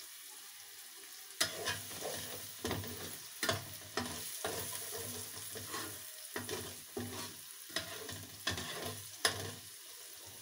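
Eggs sizzling in a stainless steel frying pan, then a spatula scrambling them, scraping against the pan in quick strokes about two a second from about a second and a half in until near the end, over the steady sizzle.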